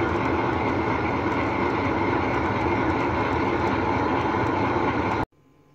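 Electric tabletop wet grinder running steadily, its stone rollers turning in the steel drum as they grind soaked urad dal into thick vada batter. The sound cuts off suddenly near the end.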